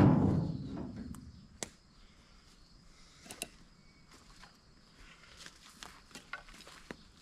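Wood from a wind-felled tree being handled during cleanup: one heavy thud at the start that dies away over about a second, then scattered light clicks and snaps.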